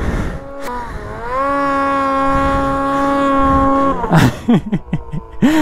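A person's long drawn-out call. It rises in pitch at first, then holds one steady note for about two and a half seconds. A few shorter vocal sounds follow near the end.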